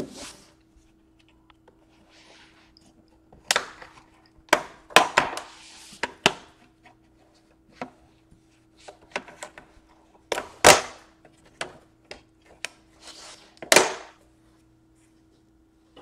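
Bottom cover of a Dell Inspiron 13 2-in-1 laptop being pried off with a guitar pick: a string of irregular sharp snaps and clicks as the edge clips release one by one, with brief scraping between them.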